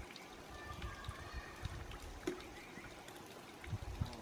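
Giant panda eating bamboo: scattered sharp cracks and low thumps as the stalk is bitten and chewed, over a steady trickling hiss.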